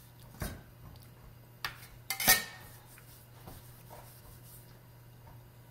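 Steel bench scraper knocking and clinking against a granite countertop: a few light knocks, the loudest about two seconds in with a short metallic ring. A faint steady low hum runs underneath.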